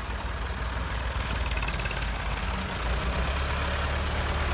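Farm tractor's diesel engine running steadily at low revs, getting a little louder partway through.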